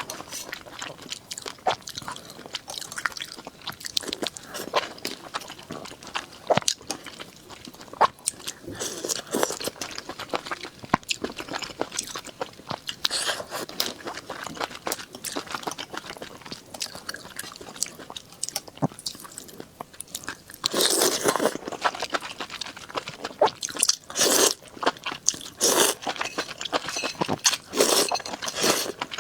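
Close-up sounds of a person eating: chewing and crunching food with many small clicks, and a few louder crunching bursts in the last third.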